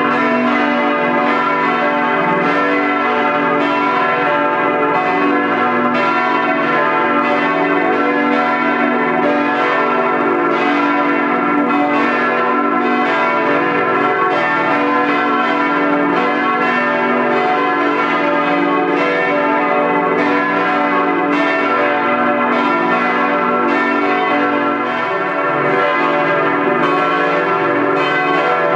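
Church bells ringing together in a steady, continuous peal, their strokes overlapping so the tones never die away.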